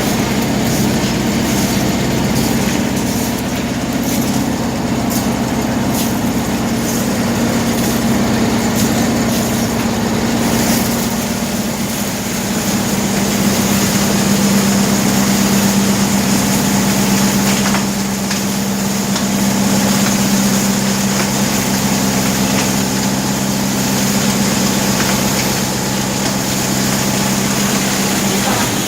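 A briquette-making machine running steadily with a constant mechanical drone from its drive, its pitch shifting slightly about twelve seconds in.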